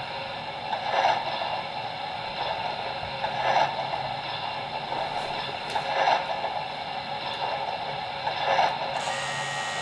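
The sound system of a model MTH RailKing Alaska Railroad 0-6-0 steam switcher playing standing-locomotive steam sounds: a steady hiss with a louder swell about every two and a half seconds. About nine seconds in, a thin high tone joins the hiss.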